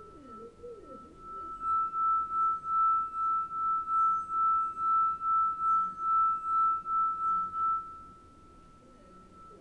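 Crystal wine glass, part filled with water and tuned to E, singing with one steady high tone as its rim is rubbed. The tone swells and fades about two and a half times a second, is loudest from about two seconds in to near the end, then dies back to a faint ring.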